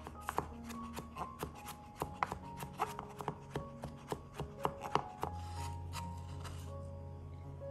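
Kitchen knife mincing garlic and ginger on a bamboo cutting board: quick, uneven chopping strikes that stop about five seconds in.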